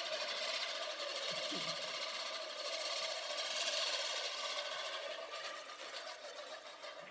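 Lawnmower running steadily as it cuts grass, a constant mechanical whirr with a fine rapid rattle, easing off slightly near the end.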